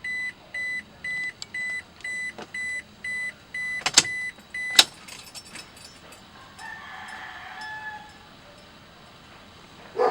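Toyota Hilux's electronic warning chime beeping about twice a second, then two sharp, loud clicks about four and five seconds in, with the chime stopping at the second click. A faint whir follows, and a thump comes at the very end.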